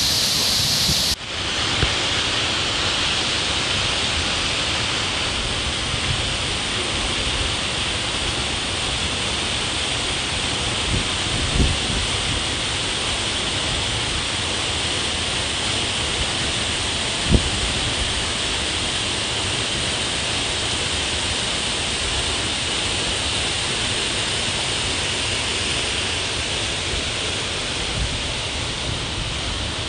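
Waterfall pouring into a shallow pool: a steady rush of falling and splashing water, with a brief dip about a second in and a couple of short knocks later on.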